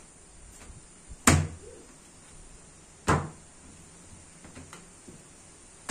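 Sharp knocks of a butcher's knife coming down onto a stainless steel table while cutting up raw chicken, three in all about two seconds apart, the last right at the end.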